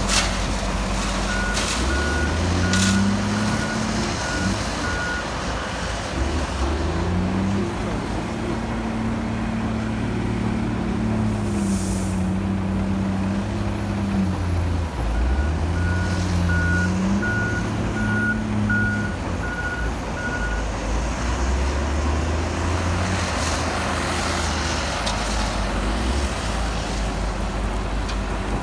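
Caterpillar 336E excavator's diesel engine working under hydraulic load, its pitch rising and falling as the boom and bucket swing and dig. Twice a backup alarm beeps in a steady run of about two beeps a second.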